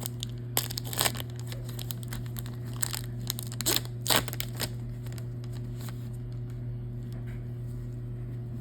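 A trading-card pack wrapper being torn open and crinkled by hand, in two crackly bursts, about a second in and again around four seconds in. A steady low hum runs underneath.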